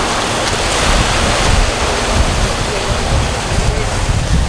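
Small waves washing up on a sandy beach, mixed with wind buffeting the microphone.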